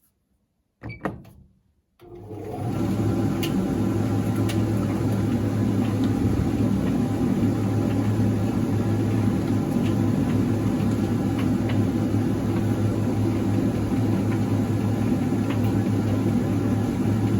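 Electrolux QDC commercial vented tumble dryer starting a cycle about two seconds in: drum motor and fan come up to speed over about a second, then run steadily with a low hum and a few faint clicks from the tumbling load.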